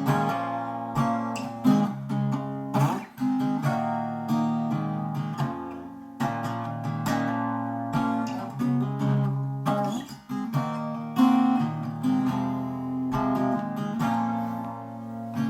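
Gibson ES-125 archtop guitar strummed, playing chords in an instrumental passage with no singing.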